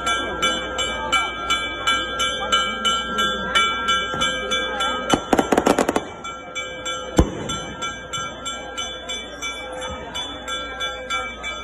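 A bell rung rapidly and steadily, about three strokes a second, over a crowd murmur. About five seconds in comes a quick run of louder sharp cracks, and a second later a single sharp bang.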